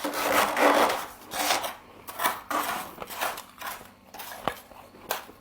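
Humidifier frost crunching and scraping in close-up: a dense run of crunching at first, then shorter separate crunches and a few sharp clicks near the end.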